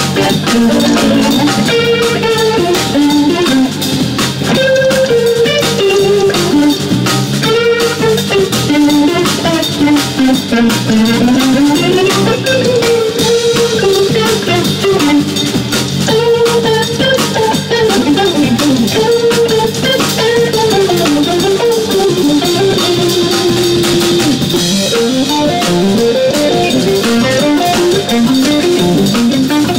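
Small jazz band improvising: electric guitar playing a winding melodic line that slides up and down, over electric bass and a drum kit with steady cymbal work.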